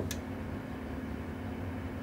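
Steady low electrical hum with a faint hiss from a powered-up CB amplifier test bench (amplifier and its power supply), with one short click just after the start.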